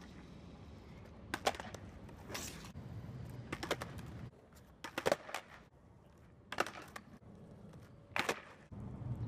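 Skateboard wheels rolling on smooth concrete, with a sharp clack roughly every second as the deck and tail strike the ground during freestyle flatland tricks. The rolling rumble fades out about four seconds in and returns near the end.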